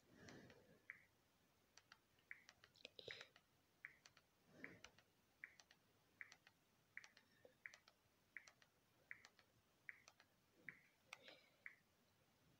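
Quiet clicks and short high blips, about one every 0.7 seconds, as letters are picked one at a time on a smart TV's on-screen keyboard with a remote control.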